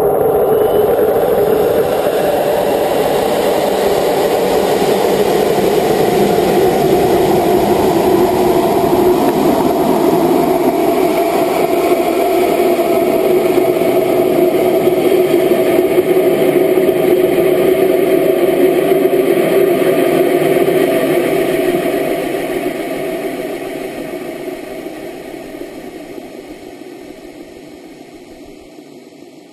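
GoFast amateur rocket's solid-fuel motor burning during the climb, heard through a camera mounted on the rocket's body: a steady, loud rushing noise that fades gradually over the last several seconds.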